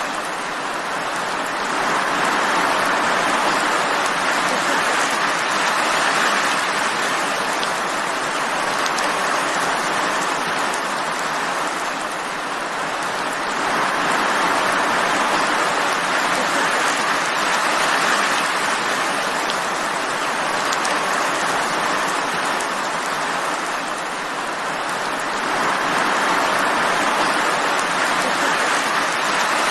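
Steady rain, a dense even hiss that swells and eases slowly about every twelve seconds.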